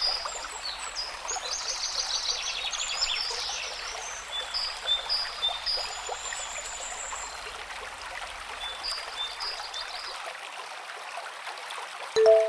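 Running water from a stream, with small birds calling in repeated short high chirps and a quick trill. A brief, loud, low two-note sound comes just before the end.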